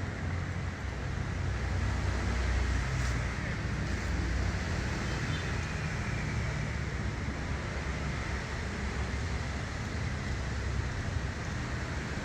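Steady low rumble with a constant hiss of background noise, with a few faint ticks.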